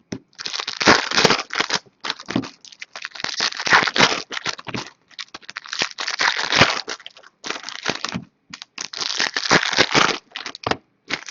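Trading card packaging being opened and handled: plastic wrappers crinkling and tearing in irregular rustling bursts.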